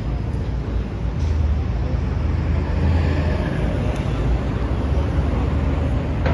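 City street traffic noise, with the low rumble of a vehicle engine running close by from about a second in.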